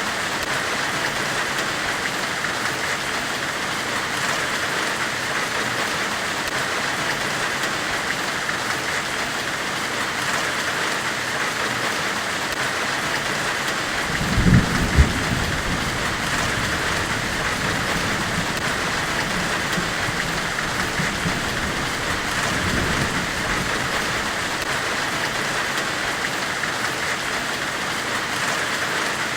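Steady white-noise hiss in the style of a forge weld, even and unbroken, brightest in the upper middle. A low rumble swells briefly about halfway through, and a softer one follows about eight seconds later.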